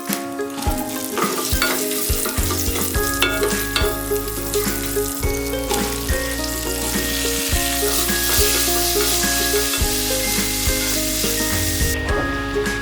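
Medu vada being deep-fried: a steady sizzle of food frying in hot oil.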